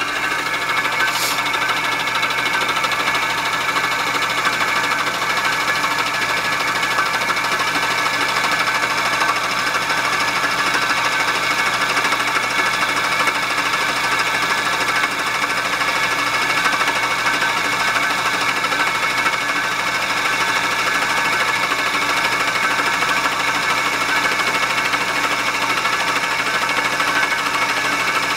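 Milling machine running steadily with a fly cutter taking a facing pass across a relined brake pad's friction lining, a fast even machine chatter throughout. A short high tick about a second in.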